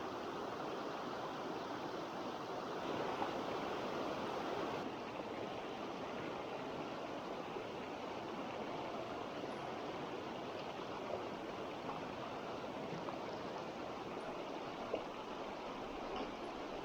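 Mountain stream rushing: a steady, even wash of flowing water.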